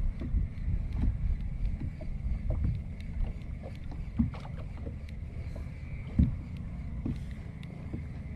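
Spinning reel cranked steadily on a lure retrieve, with wind rumbling on the microphone. Two sharp knocks cut through, the louder about six seconds in.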